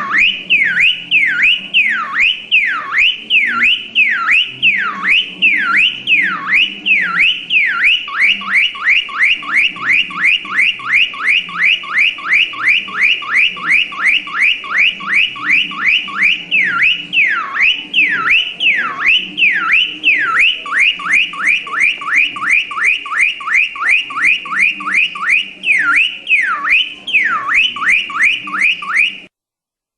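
Electronic car alarm siren: a loud whooping tone sweeping up and down, switching between slower sweeps and rapid chirping sweeps several times, then cutting off abruptly near the end.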